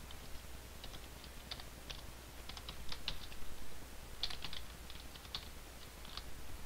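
Typing on a computer keyboard: short runs of irregular keystrokes with brief pauses between them.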